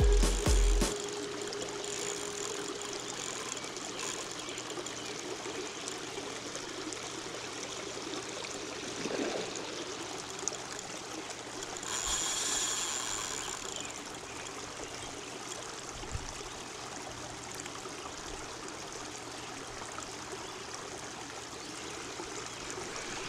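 Steady trickling wash of lake water along the shoreline, with a brief louder hiss about twelve seconds in. Background music cuts off within the first second.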